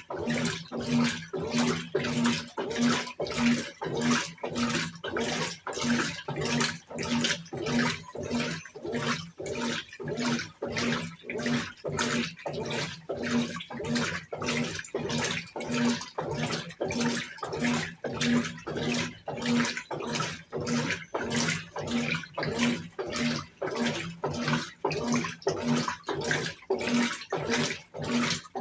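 Brastemp Tira-Manchas Advanced 17 kg top-load washer agitating a wash load: rhythmic water sloshing, a little under two strokes a second, each with a low motor hum.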